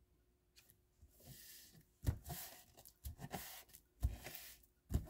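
Sheets of paper being handled on a cutting mat: a soft rustle as the paper slides into place about a second in, then several soft thumps about once a second as hands press and smooth it flat.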